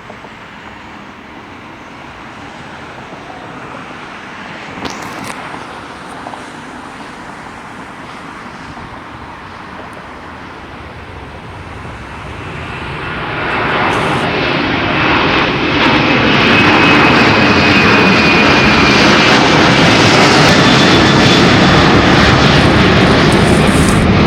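Jet airliner's engines, faint at first, then growing loud over a couple of seconds about halfway through as the aircraft comes close, and staying loud with a thin, slowly falling whine above the rush of the engines.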